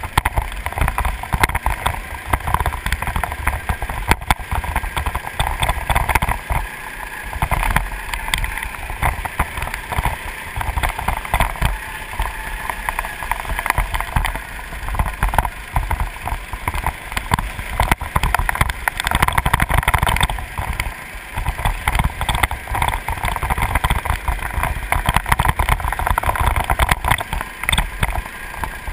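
Go-kart engine running at speed, heard from on board, its note rising and falling as the kart goes through the corners, with wind buffeting the microphone.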